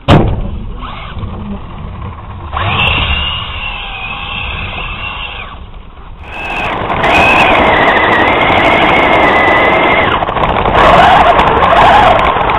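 A radio-controlled buggy lands hard at the very start with a sharp knock, then its motor and drivetrain whine as it drives. The whine wavers in pitch with the throttle and becomes much louder from about six seconds on.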